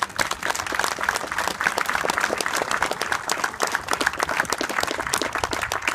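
A crowd of spectators applauding, a dense, steady clatter of many hands clapping.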